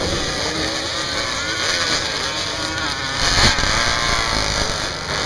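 Engines of paddle-tired sand-drag three-wheelers revving unevenly, their pitch rising and falling, with a brief louder surge about three and a half seconds in.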